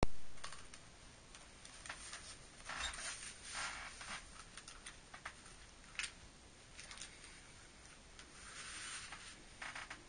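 Laces of a lace-up ankle brace being pulled and tightened, making faint, scattered rustling and scraping swishes, with a sharp click about six seconds in. A brief thump at the very start is the loudest sound.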